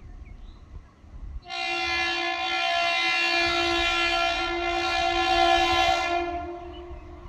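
Horn of an approaching ICF-Medha EMU local train sounding one long blast. It starts suddenly about one and a half seconds in and lasts about five seconds before fading out.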